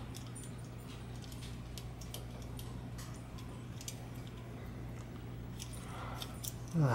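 Faint scattered ticks and scrapes of a bicycle shift cable being twisted and pushed through a handlebar shifter, over a steady low hum.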